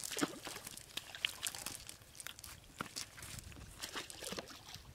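Live tilapia flapping inside a cast net on dry grass: irregular rustles, slaps and crackles of fish and mesh against the ground.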